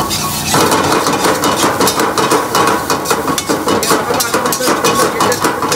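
Metal spatula scraping and clanking against a steel wok in rapid, repeated strokes as rice is stir-fried.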